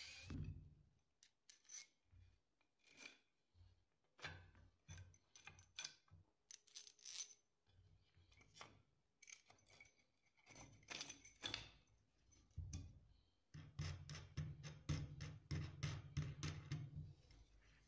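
Hand handling of small metal hardware against a wooden bar: scattered light clicks and taps, then a quicker run of clicks, about four or five a second, as a bolt and wing nut are worked into the bar near the end.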